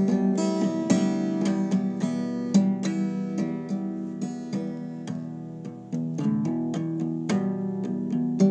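Acoustic guitar strummed in a steady rhythm, its chords ringing between strokes, with a short dip in level just before a fresh strum about six seconds in.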